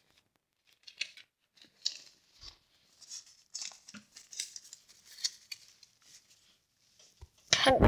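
Sheets of paper rustling and crinkling as they are handled, in a run of short, dry scrapes. A louder, brief sound cuts in near the end.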